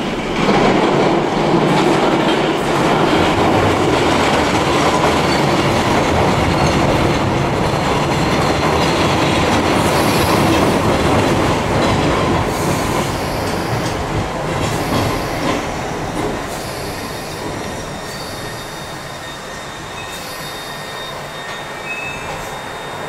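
London Underground D78 stock train arriving out of the tunnel: a loud rumble of wheels on rail that starts about half a second in and eases off in the second half as the train slows along the platform. A thin high squeal sounds through the later part.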